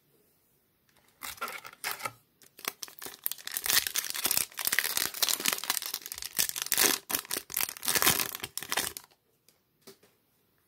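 Foil wrapper of a Topps baseball-card pack being torn open and crinkled. There is a short burst about a second in, then a longer stretch of crackling, tearing noise that stops about a second before the end.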